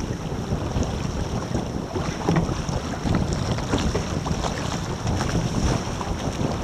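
Wind buffeting the microphone on a small sailing catamaran, with water splashing and slapping irregularly against the hulls.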